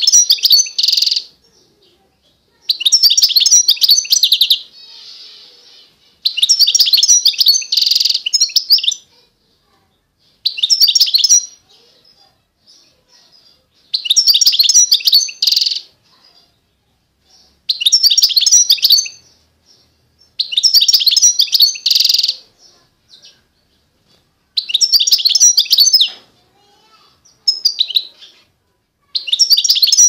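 A finch singing loud, rapid twittering phrases, each lasting a second or two, about ten of them separated by short pauses.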